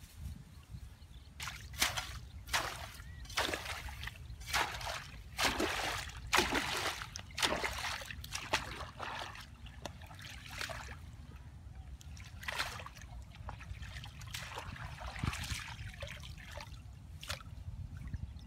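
Water splashing and sloshing: a quick run of splashes over the first eight seconds or so, then scattered splashes and trickling, over a steady low rumble.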